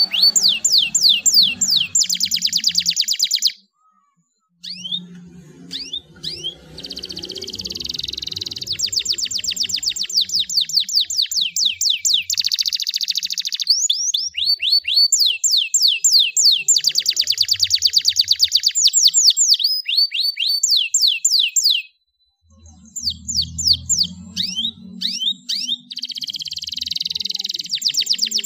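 Domestic canary singing: long rapid trills of fast-repeated sweeping whistled notes, rolling from one trill into the next, with two brief breaks in the song.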